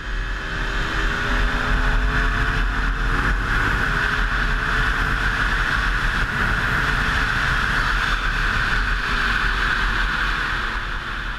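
2013 Aprilia Tuono V4 APRC's V4 engine pulling hard at high speed, its note slowly climbing with a short step about four seconds in, then holding. Heavy, steady wind rush on the bike-mounted camera's microphone covers much of the engine.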